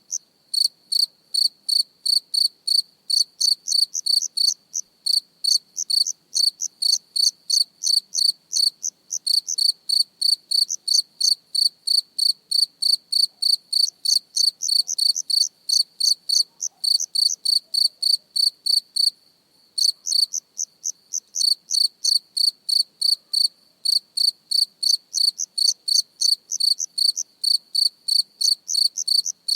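A cricket chirping close up: a steady run of short, high-pitched chirps, about three a second, broken by a couple of brief pauses.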